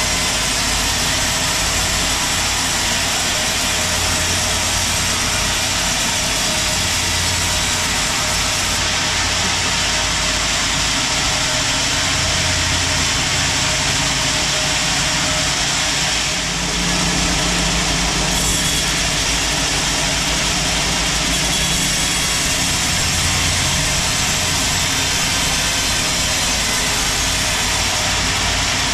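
Sawmill machinery running steadily at a teak-sawing mill, a loud, continuous mechanical drone with a low hum. There is a brief dip about halfway through.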